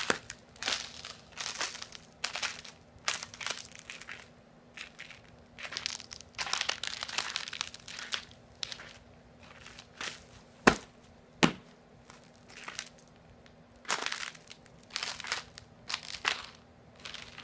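Ice crunching and crackling in irregular bursts, with two sharp cracks a little under a second apart past the middle.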